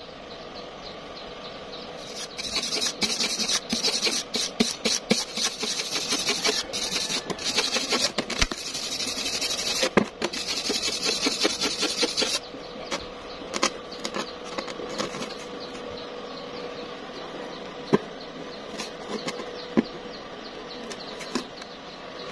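Wire brush scrubbing a fresh weld bead where a thin galvanized square tube meets a steel plate, cleaning off slag: a harsh, rapid scratching that starts about two seconds in and stops abruptly about twelve seconds in. After it come only a few scattered light clicks.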